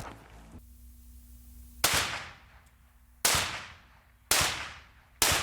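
.308 rifle rounds striking corrugated metal sheeting: four sharp impacts about a second apart, each with a short ringing tail.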